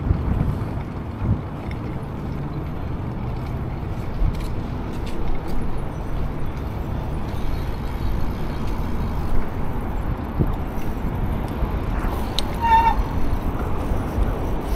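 Riding a Redline BMX bike: wind rushing over the chest-mounted microphone and tyres rolling steadily. A brief high squeak with a few overtones comes about twelve seconds in.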